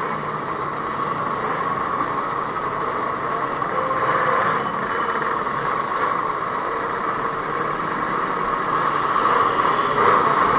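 Many scooter engines running together as a column of scooters rides slowly onto a ferry's enclosed vehicle deck, a steady din that grows a little louder near the end.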